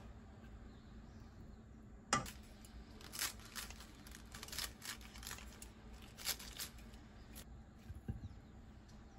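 Kitchen scissors snipping lettuce leaves: a run of short, crisp snips that starts about two seconds in and stops about seven seconds in.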